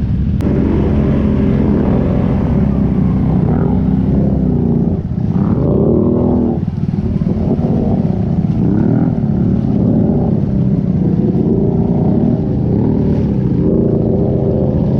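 ATV engine running under load while riding, its revs rising and falling again and again as the throttle is worked, with a dip around the middle.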